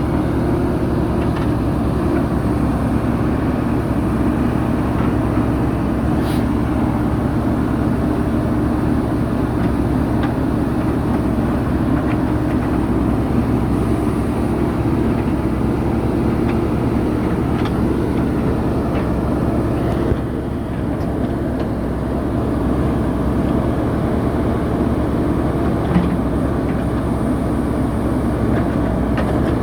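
JCB 3DX backhoe loader's diesel engine running steadily, with a brief dip in level about two-thirds of the way through and one short knock near the end.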